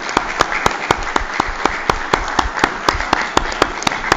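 A roomful of people applauding, with one person's claps close by standing out, sharp and even at about four a second.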